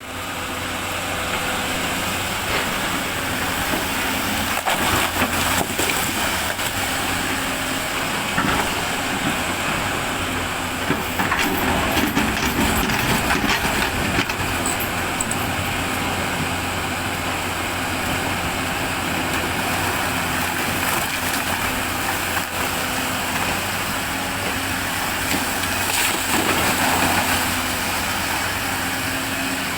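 Hyundai 210 excavator's diesel engine running steadily under load, with scattered knocks and clatter of rock being shifted.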